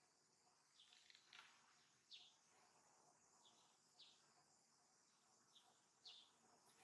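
Faint, high, short chirping calls, each sliding down in pitch, about eight of them at irregular spacing over a quiet outdoor background.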